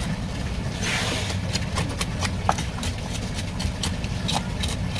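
A steady low engine-like hum, with irregular sharp clicks and taps over it and a short hiss about a second in.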